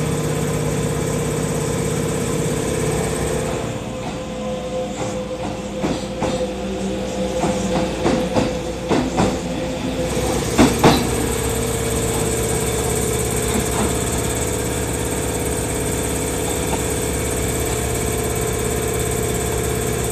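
Kintetsu 22000 series electric train moving off and passing close by, its wheels clacking over rail joints and points in an uneven run, the loudest two knocks about eleven seconds in. A steady electrical hum from the trains standing at the platform runs underneath.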